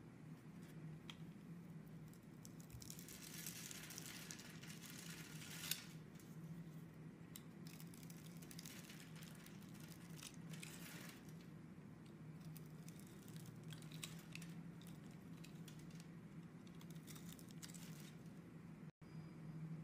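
Bar soap scored into a fine grid crumbling into small cubes as a blade cuts through it: faint, irregular crackling and crunching in clusters, over a steady low hum.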